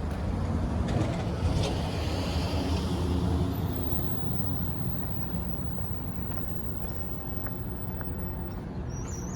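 Steady low vehicle rumble that slowly fades, with a brief high hiss about two seconds in; small birds start chirping near the end.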